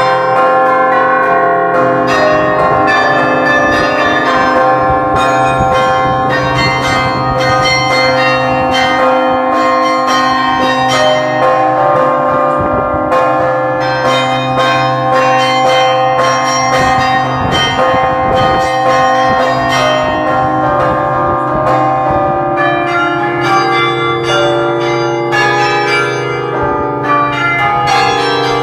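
The carillon bells of Burton Memorial Tower ringing close up from inside the tower. Many notes are struck one after another at changing pitches, each ringing on and overlapping the next.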